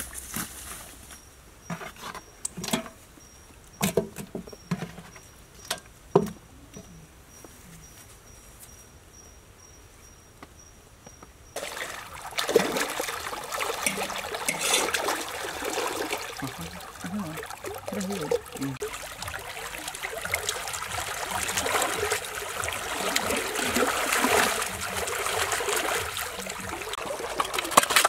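Twigs snapping and leaves crunching underfoot in forest undergrowth, over an insect's steady, pulsing high chirp. About twelve seconds in, this gives way suddenly to continuous splashing and trickling water as hands work in a shallow muddy stream.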